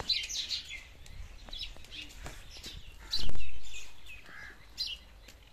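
Small birds chirping and twittering steadily, with a dull, loud thump about three seconds in.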